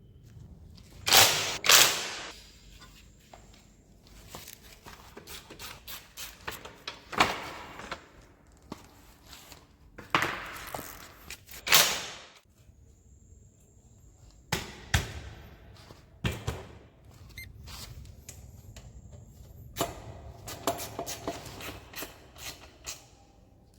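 Irregular knocks, clicks and clanks of parts and tools being handled, with the loudest knocks about a second in, around ten to twelve seconds in, and around fifteen to sixteen seconds in.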